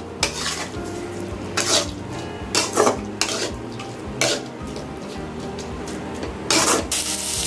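Metal spatula scraping and clanking against a metal kadai as chicken pieces are stirred in hot oil, a few separate strokes over a light sizzle. Near the end the sizzle becomes louder and steady.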